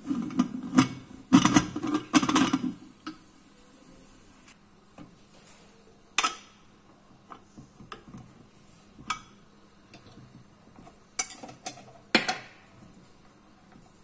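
Aluminium pressure cooker lid being set and locked on the pot: a quick run of metal clanks and scrapes in the first three seconds, then a few sharp single clicks later on as the pressure weight on the vent pipe is handled.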